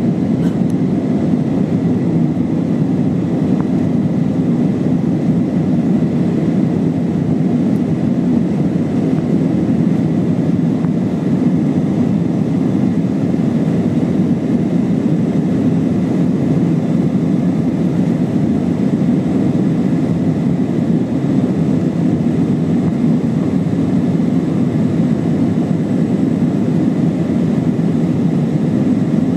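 Steady roar of an Airbus A320's IAE V2500 turbofan engines and airflow, heard from inside the passenger cabin, even in level and pitch throughout, with a faint thin whine above it.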